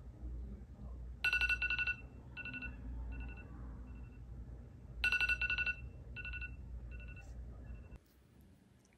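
Phone alarm ringing: a quick trill of high beeps followed by several fading repeats, the whole phrase played twice about four seconds apart. Under it runs a low steady hum that cuts off near the end.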